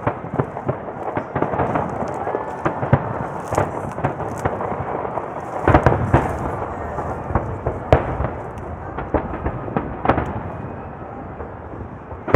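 A continuous fireworks barrage: many shells bursting in quick succession, with crackling between them and the loudest bangs about six, eight and ten seconds in.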